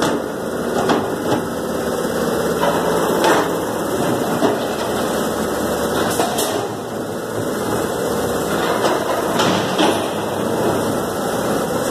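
Abattoir machinery running steadily, with scattered sharp metal knocks and clanks every second or two.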